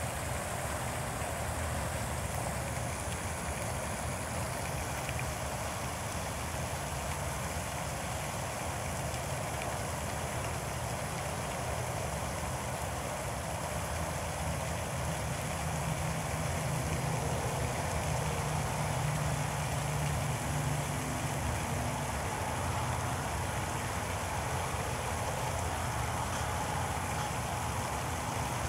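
Steady ambient noise: a low rumble under an even hiss, with no distinct calls or other events.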